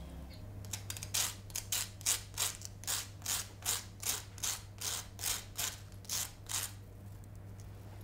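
Kitchen counter work: a run of about fifteen short rasping strokes, a bit under three a second, over a low steady hum; the strokes stop about two-thirds of the way through.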